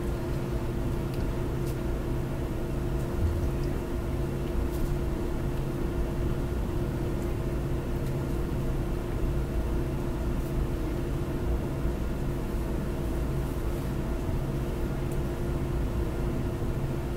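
Steady background hum and hiss with a few held low tones and no speech.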